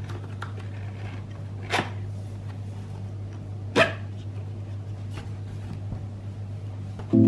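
Cardboard flaps and a locking tab of an appliance box being worked open by hand, with two short, sharp scraping snaps about two seconds apart and a few lighter rustles, over a low steady hum.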